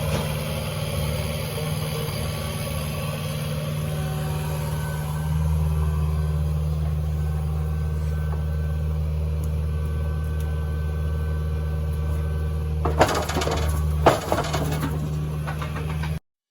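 Kubota mini excavator's diesel engine running steadily, its low hum getting louder about five seconds in as it works harder, with two sharp knocks near the end before the sound cuts off abruptly.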